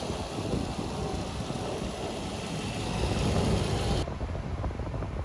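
Nissan Maxima's 3.5-litre V6 running steadily at idle, warming up while air is bled from its freshly filled cooling system. About four seconds in, the sound turns duller as it is heard from inside the cabin.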